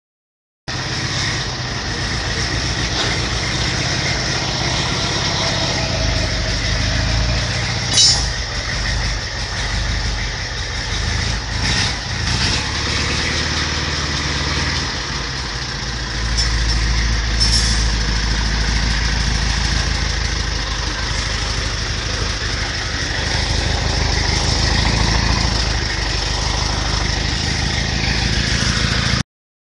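A vehicle engine idling steadily, a low even rumble that grows a little heavier about sixteen seconds in, with a few short sharp clicks over it.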